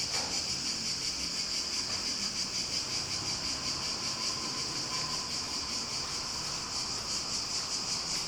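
A steady, high-pitched shimmering hiss, with no speech.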